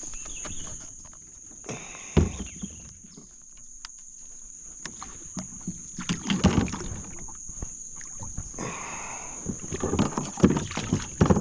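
Knocks, bumps and clatter against a kayak hull as a hooked catfish is brought aboard and handled, in clusters about two seconds in, around six to seven seconds in, and near the end. Under them, a steady high drone of insects such as crickets.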